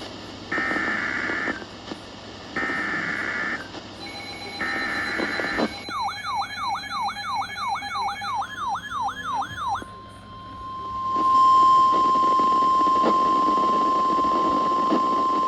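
Emergency Alert System SAME header: three bursts of buzzy digital data tones, about a second each with a second's gap. A warbling tone follows, sweeping up and down about two and a half times a second for about four seconds. Then comes a loud, steady single-pitch attention tone near 1 kHz, the NOAA Weather Radio warning alarm tone, over a radio hiss, signalling the start of a new weather warning.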